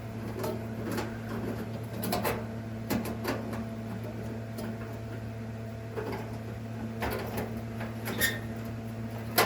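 Scattered light clicks and metallic taps of hand tools and screws on a clothes dryer's sheet-metal heater assembly as its sensors are unscrewed, over a steady low hum.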